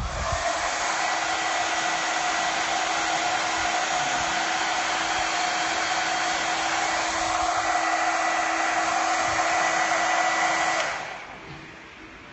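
Electric hair dryer running: a steady rush of air with a motor hum and whine. It starts at once and shuts off about eleven seconds in.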